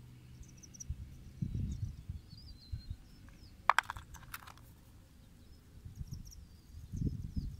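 Hard stones clicking against each other a few times a little past halfway, as a pebble is set down among the specimens and a geode picked up. Dull low handling thumps come early and near the end, with faint bird chirps throughout.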